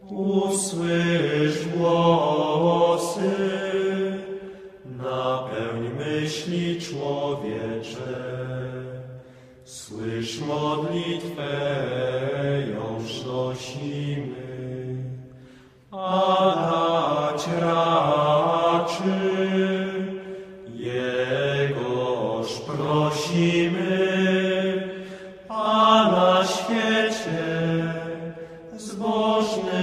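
Religious chanting by a low voice: long held notes sung in phrases of about five seconds, with brief pauses between.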